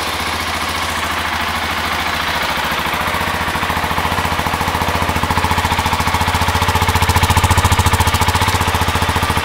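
2019 KTM 690 SMC R's single-cylinder engine idling right after start-up through its stock exhaust: a steady train of fast, even pulses, growing a little louder about two-thirds of the way in.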